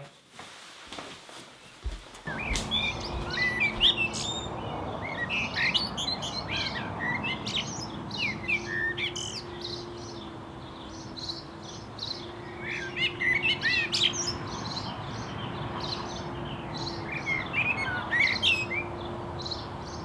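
Several wild birds chirping and singing over a steady outdoor hiss, starting about two seconds in, with a faint steady hum underneath.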